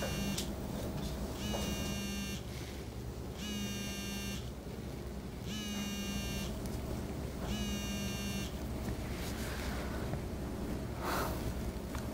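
Smartphone vibrating with an incoming call, a buzz in about one-second pulses with one-second gaps, five times, then it stops.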